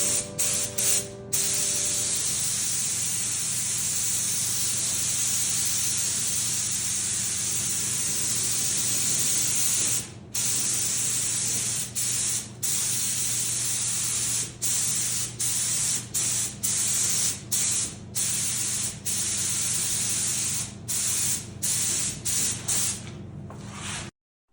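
Compressed-air paint spray gun spraying, a steady hiss broken by many short pauses as the trigger is let go between passes. It cuts off abruptly near the end.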